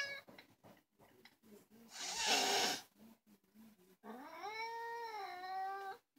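Black domestic cat vocalizing: a short breathy, raspy cry about two seconds in, then a long drawn-out meow of about two seconds that rises, holds steady and falls slightly at the end.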